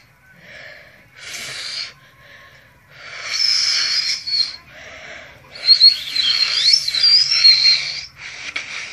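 Finger-whistling attempts: a series of breathy blows through the lips and fingers. Some produce a thin, high whistle tone, and the longest, about six seconds in, wavers up and down in pitch.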